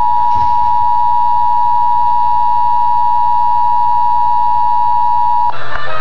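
Emergency Alert System two-tone attention signal (853 and 960 Hz together) sounding steadily through a handheld radio's small speaker. It breaks off about five and a half seconds in, replaced by a burst of buzzy mixed data tones.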